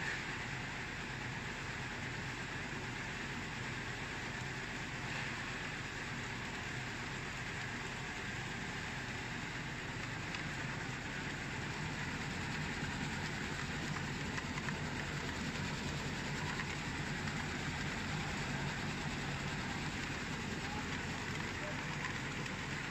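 Peanut and almond chopping machine running steadily, its reciprocating knife chopper and vibrating grading screen shaking chopped nut particles across a stainless-steel sieve. The noise is even throughout and a little louder in the second half.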